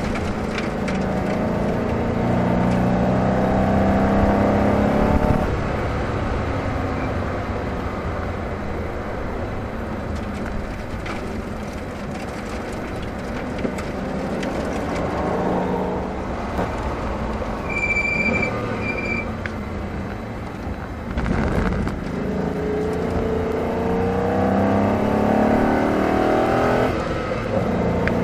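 Ford Mustang convertible's engine accelerating hard, heard from the open cabin over steady wind and road noise: its pitch climbs, drops at an upshift about five seconds in, and climbs again near the end. Two short high beeps come about two-thirds of the way through.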